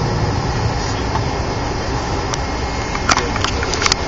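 Steady airliner cabin noise while taxiing after landing: the engines and cabin air running, with a few sharp clicks and rattles about three seconds in.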